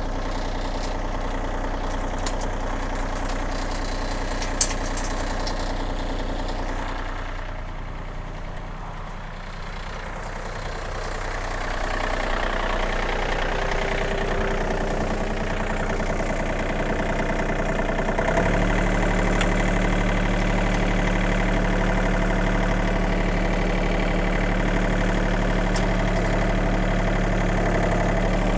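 John Deere 2032R compact tractor's three-cylinder diesel engine idling, with one sharp click about four and a half seconds in. About two-thirds of the way through, the engine steps up to a louder, steady note.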